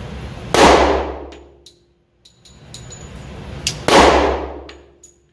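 Two shots from a Glock 29 compact 10mm pistol firing hand-loaded rounds, about three seconds apart, each a sharp crack that rings on for about a second in the enclosed range.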